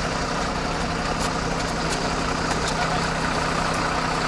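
Fire truck engine idling with a steady low hum, with a few faint clicks over it.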